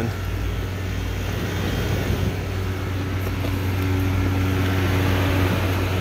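Rooftop packaged air-conditioning units running: a steady low hum with condenser fan air noise, getting a little louder about halfway through.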